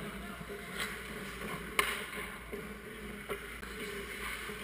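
Ice rink sound: skate blades scraping on the ice over a steady hum, with a few sharp clicks, the loudest about two seconds in.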